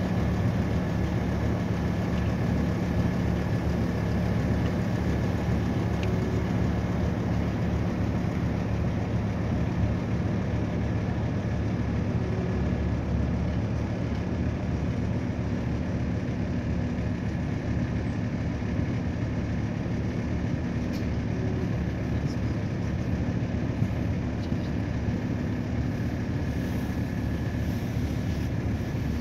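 River passenger boat's engine running steadily under way: a constant low hum with a thin steady whine above it.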